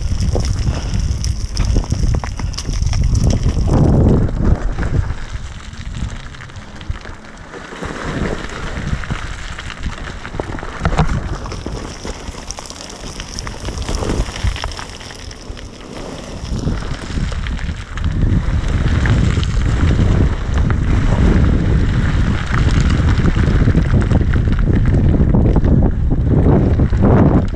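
KTM enduro motorcycle engine running at low revs as the bike crawls over loose rock, with wind buffeting the microphone. It eases off twice in the first half and runs steadier and louder from about eighteen seconds in.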